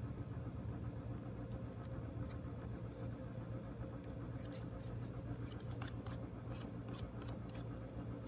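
Light clicks and crackles of an adhesive skin decal being pressed and smoothed down by fingertips onto a drone battery, coming more often in the second half, over a steady low hum.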